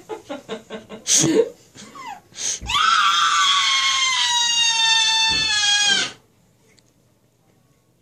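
A sedated young girl giggles in short bursts, then lets out one long, high-pitched scream of about three seconds, its pitch sliding slightly down, that cuts off suddenly.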